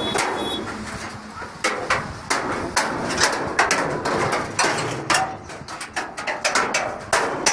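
Panel-beating hammer blows on metal, a long irregular series of sharp strikes about one or two a second, each ringing briefly.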